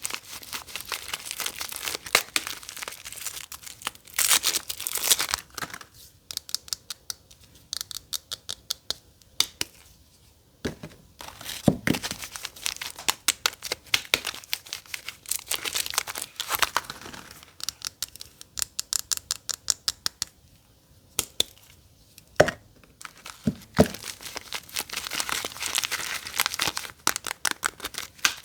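Soap packaging being unwrapped by hand: wrapper crinkling and tearing in bursts, with quick runs of crackles and short pauses between.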